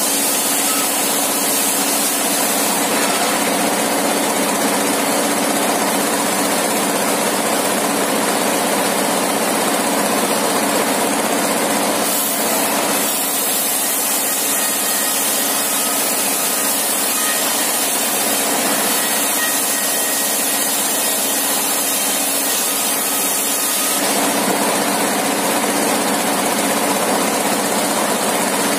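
Engine-driven circular saw ripping a long wooden board lengthwise into a thin plank. The engine runs steadily under the noise of the blade in the wood, and the sawing sound changes in tone about 13 seconds in and again near 24 seconds.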